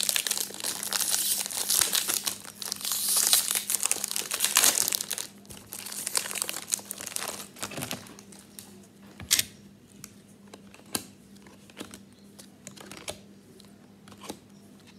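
Foil trading-card pack wrappers being torn open and crinkled, a dense crackle for about the first five seconds. After that, scattered light clicks and ticks as the cards are handled.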